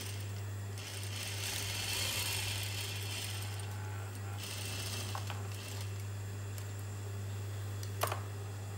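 JUKI industrial lockstitch sewing machine stitching fabric in two short runs, the first from about a second in and the second around the middle, over a steady low hum. A sharp click comes near the end.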